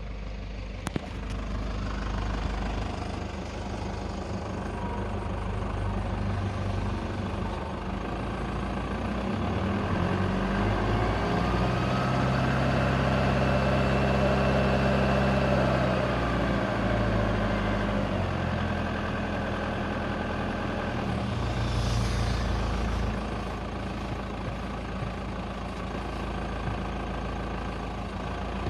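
Toyota HiAce KDH206V 3.0-litre 1KD-FTV turbodiesel idling with diesel clatter. It swells louder with a shift in engine pitch for several seconds in the middle, then settles back. Mixed in is an irregular shara-shara rattle, like a washer shaken on a bolt, which the owner puts down to idle hunting: intake air and fuel quantity fluctuating, likely helped by sludge in the EGR valve, intake manifold and throttle valve.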